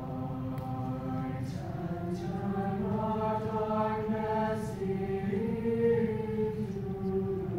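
Mixed high school chorus singing slow, sustained chords, the notes held for a second or two before moving to the next pitch.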